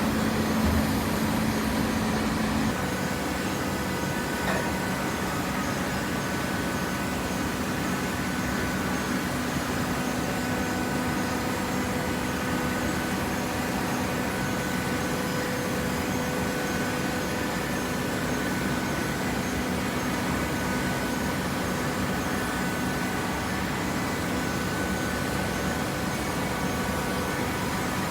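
PET bottle baler running: a steady machine hum with a constant whine over it. A low tone in the hum shifts slightly about three seconds in.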